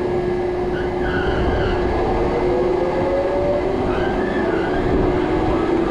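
Observation-tower lift machinery running as the gondola rises up its mast: a steady mechanical hum with a held tone over a low rumble. A higher whine rises in pitch through the middle.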